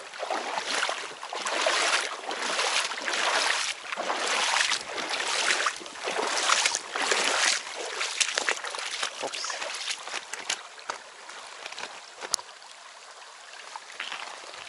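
Footsteps wading through a shallow, stony river, splashing with each stride, for about the first eight seconds; after that, only the quieter, steady rush of the riffle, with one sharp click near the end.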